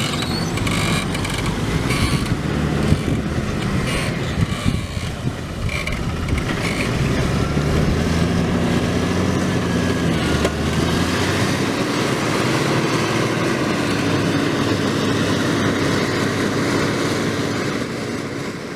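Same Diamond 265 tractor's 7.1-litre Deutz 1013 diesel engine running steadily under load while pulling a plough through the soil, its note shifting a little around the middle, with a few knocks in the first seconds.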